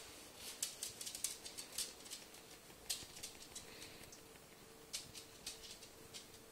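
Light, irregular clicking and tapping of a cat's claws and paws on a wooden floor, coming in quick clusters with short gaps between.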